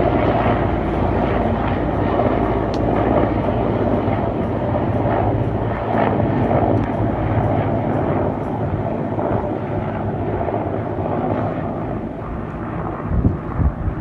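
Mi-8 helicopter flying past, its main rotor and twin turboshaft engines running steadily.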